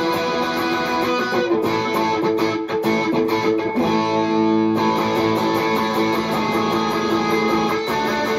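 Electric guitar played through a Valeton GP-200JR multi-effects processor on its overdrive preset: held, overdriven lead notes and chords.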